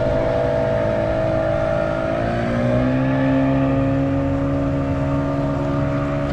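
Boat's outboard motor running steadily, its engine speed rising slightly about two and a half seconds in.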